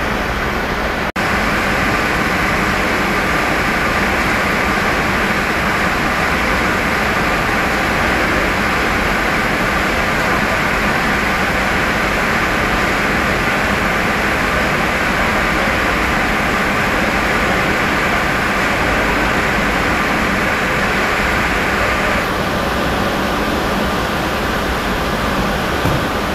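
Steady, loud rushing noise with no distinct events, cut by a brief dropout about a second in; its brighter, hissier part falls away about 22 seconds in.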